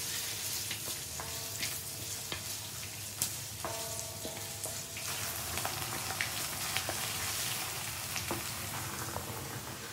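Sliced shallots, dried red chillies and curry leaves sizzling steadily in hot coconut oil in a steel kadai, with scattered clicks and scrapes as a wooden spatula stirs them against the pan.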